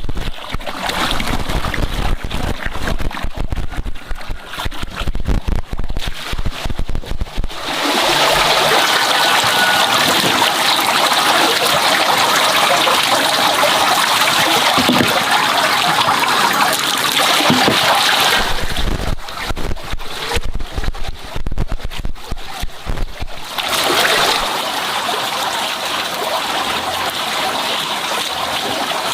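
Water running and splashing, with stretches of low knocking and rumble near the start and again about two-thirds of the way in.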